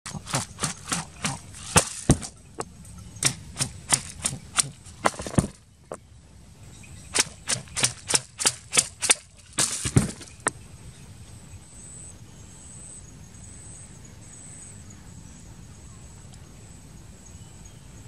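Two runs of sharp clicks, about three a second, the second run stopping about ten seconds in; after that only a faint steady high-pitched background.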